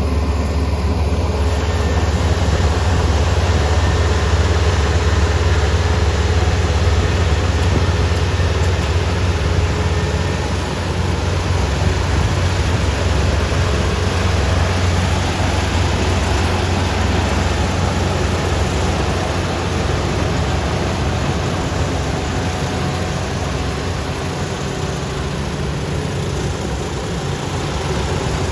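Kubota ER470 combine harvester's diesel engine running steadily: a heavy low drone with a wash of mechanical noise over it.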